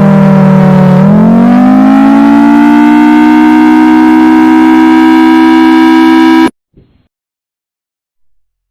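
Loud civil-defense siren wail of several tones at once: it dips slightly, winds up in pitch over about two seconds from a second in, holds steady, then cuts off abruptly.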